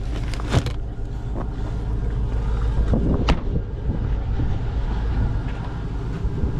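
Chevrolet Tahoe running with a steady low rumble, with a few sharp creaks and clicks, the clearest about half a second in and about three seconds in.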